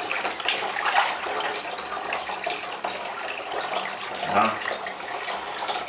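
Bathwater sloshing and splashing in a bathtub as hands scrub a cat standing in it, an irregular watery hiss with small splashes.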